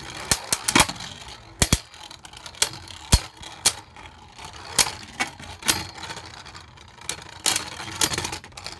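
Two Beyblade Burst spinning tops whirring around a plastic stadium and clashing, with sharp plastic-and-metal clacks at irregular intervals as they collide and hit the stadium wall.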